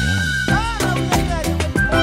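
Upbeat instrumental intro of a children's cartoon song: a sliding tone and a few swooping notes, then a bouncy steady beat with percussion.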